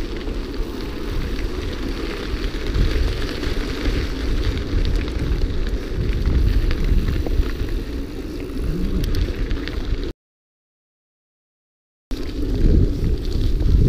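Wind buffeting the microphone of a bike-mounted action camera, with mountain-bike tyres rolling over a dirt track and a few light ticks. The sound cuts out completely for about two seconds near the end, then resumes.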